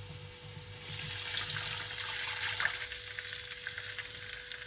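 Chicken broth poured from a saucepan into a pot of garlic and onion frying in hot oil, giving a hissing sizzle that swells about a second in and dies down as the broth covers the oil.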